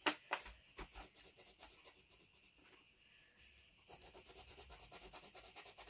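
Hand-held scraping tool scratching into oil paint on thick paper. A few separate scratches in the first second, then, after a quieter stretch, a quick run of short strokes, several a second, from about four seconds in.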